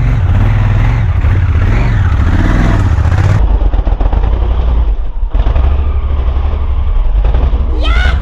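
Dirt bike engine running on a trail ride, loud and steady throughout.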